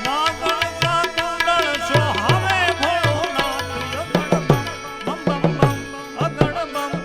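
Gujarati devotional bhajan music: rapid tabla drumming under a gliding melody line.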